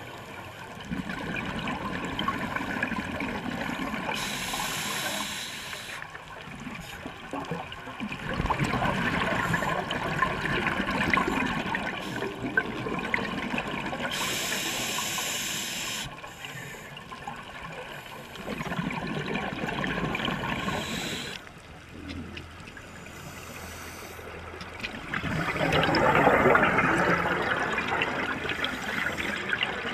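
Scuba diver breathing through a regulator underwater: a short hiss on each breath in, then a long bubbling rush of exhaled air. There are four slow breaths, the last exhalation the loudest.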